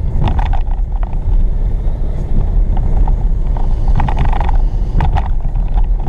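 Car driving on a dirt road, heard from inside the cabin: a steady low rumble of tyres and engine, with a few short knocks and rattles near the start and again around four and five seconds in.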